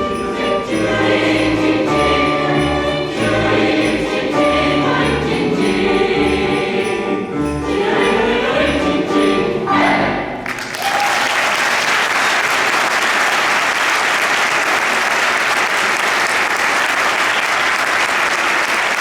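Chamber choir singing the closing bars of a carol, accompanied by shaken sleigh bells and percussion, ending on a final held chord about halfway through. The audience then breaks into steady applause.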